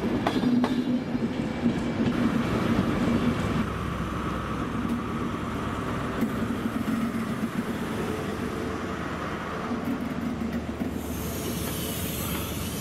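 InterCity 125 High Speed Train moving along the platform, its Class 43 power car's diesel engine running with a steady hum and rumble, a whine, and some wheel squeal. A loud hiss of air comes near the end.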